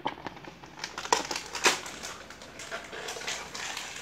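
Paper gift wrapping crinkling and rustling as hands open a present, with a couple of sharper, louder crackles about a second in and again shortly after.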